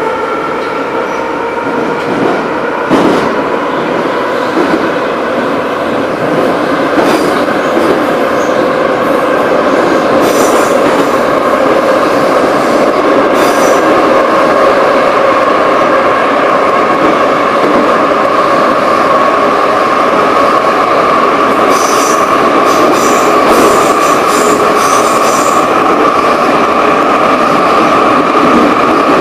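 Old Soviet-built Moscow Metro train (Ezh-3/Ezh-6/Em-508T cars) heard from inside a car as it pulls out and runs into the tunnel. The traction motors whine in a slowly rising pitch that levels off, over the rumble of wheels on rail. There is a click a few seconds in, and bursts of sharp rattling ticks around the middle and again later.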